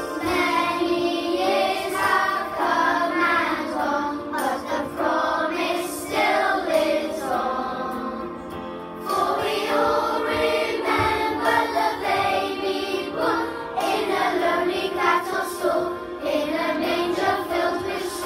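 A choir of primary-school children singing a song together, with a short break between phrases about nine seconds in.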